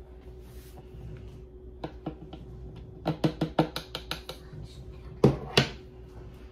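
Dishes and kitchen items being handled: a few light clicks, a quick run of small taps, then two sharper knocks close together near the end.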